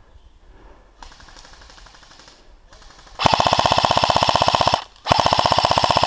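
Airsoft gun firing on full auto: fainter rapid fire from about a second in, then two loud bursts of very fast, even shots, the first about one and a half seconds long and the second about a second long.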